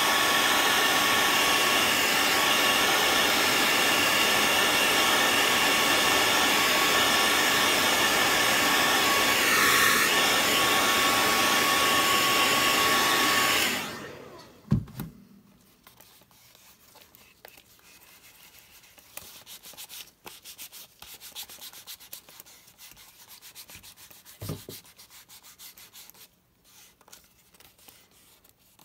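Handheld hair dryer running on high, a steady rush of air with a thin whine, switched off about halfway through. After that, faint rustling as the leather sheath is handled, with two short low thumps.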